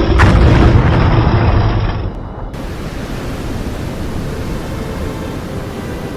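A deep, loud rumble that dies away about two seconds in, followed by a steady, even hiss of noise.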